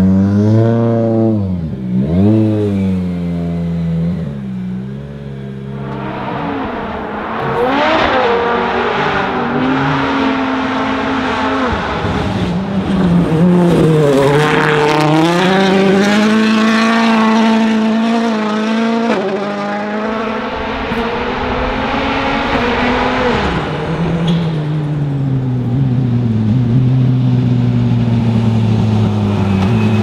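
M-Sport Ford Fiesta WRC rally car's 1.6-litre turbocharged four-cylinder engine. It blips its revs sharply for the first few seconds, then runs hard on a gravel stage, the engine note climbing and dropping again and again with gear changes and lifts.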